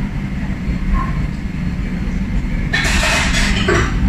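Steady low rumble, with a brief hissing rush about three seconds in.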